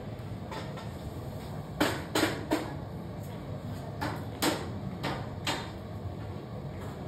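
Glass furnace's burner running with a steady low rumble, broken by about seven sharp knocks between about two and six seconds in.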